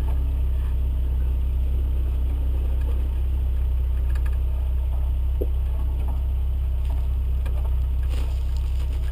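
1988 Suzuki Samurai's small four-cylinder engine running steadily at low revs while the 4x4 crawls along a rough dirt trail, with a few faint knocks and rattles from the body.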